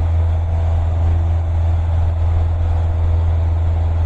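Cessna 152's four-cylinder Lycoming engine and propeller droning steadily in flight, a constant low hum with several steady overtones.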